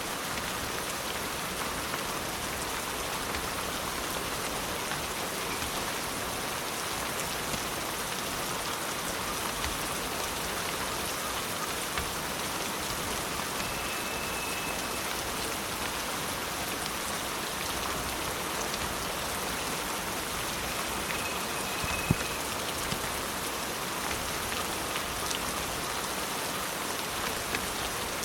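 Steady rain falling, with scattered individual drop ticks heard through it and one sharper click about three-quarters of the way through.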